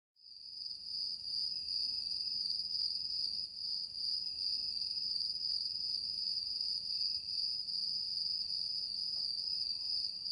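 Crickets chirping in a steady, continuous high trill that fades in at the start.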